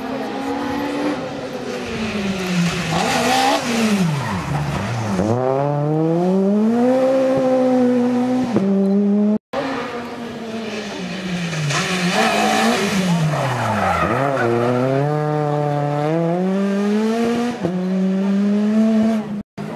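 Rally car engines at stage pace, two separate passes: in each, the engine note falls as the driver lifts off, then climbs again in steps through the gears as the car accelerates away. The sound cuts out briefly about halfway between the two.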